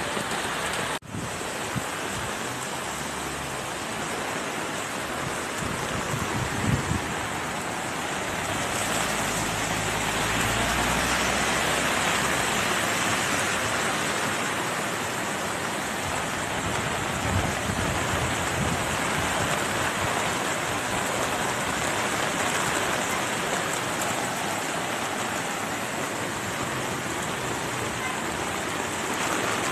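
Steady rush of heavy rain and fast-flowing floodwater surging down a concrete storm drain, a constant wash of water noise that grows a little louder about nine seconds in.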